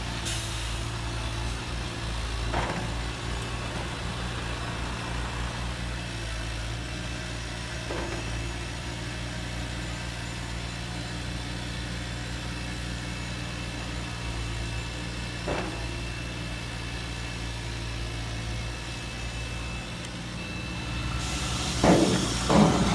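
Radio-controlled scale model construction machines working: a steady low motor hum with a few single knocks spread through, and a burst of louder clattering near the end.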